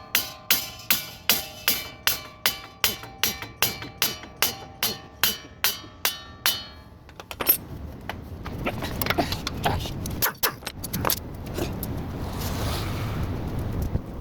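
Hammer beating on a steel part with ringing metallic strikes, about three a second for some seven seconds, then stopping; lighter, irregular metal clinks and scraping follow.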